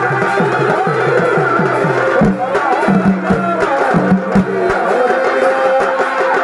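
Live Chhau dance music: a reed pipe plays a wavering melody over fast hand-drum strokes, about four a second at first, with sharper drum hits from about two seconds in.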